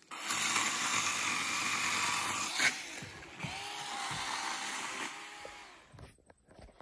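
A small motor or power tool running, with a whine that rises, holds and falls away in the middle, then fading out near the end.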